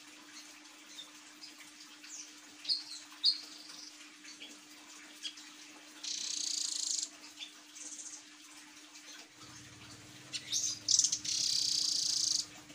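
Blue nuthatch calling: scattered short, high chips, then a rapid high trill lasting about a second some six seconds in. Near the end a cluster of sharp notes runs straight into a longer trill. A faint steady hum lies underneath.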